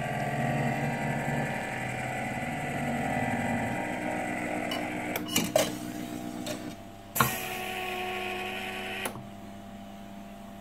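Stepper-motor-driven conveyor system running: a steady whine and hum from the motors that shifts in pitch about four seconds in, followed by several sharp mechanical clicks and knocks, the loudest about seven seconds in, before the machine goes quieter near the end.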